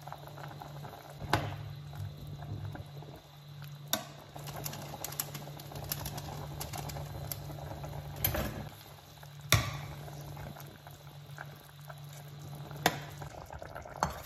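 Pork sinigang broth boiling in a stainless steel pot, a steady bubbling, with a steady low hum underneath. Half a dozen sharp knocks, the loudest sounds, come at irregular intervals through it.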